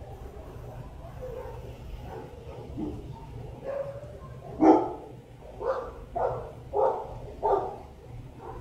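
A dog barking: five barks in quick succession starting about halfway through, the first the loudest.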